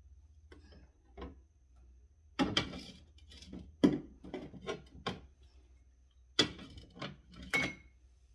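Food containers being set onto fridge shelves and drawers being handled, a run of hard knocks and clatters with the loudest coming about two and a half, four and six and a half seconds in.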